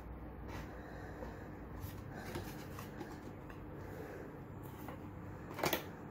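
Cardboard packaging and a clear plastic sleeve being handled: soft rustling and light taps, with one brief, louder crinkling rustle near the end.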